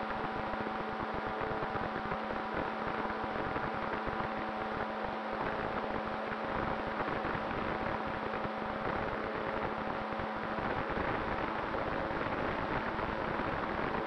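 Onboard sound of a radio-controlled ASW28 glider model in powered flight: its motor and propeller running with a steady hum under a constant rush of wind across the microphone.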